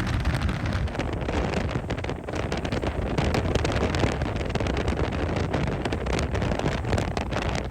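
Wind buffeting the microphone: a loud, dense rushing noise with many short crackling gusts.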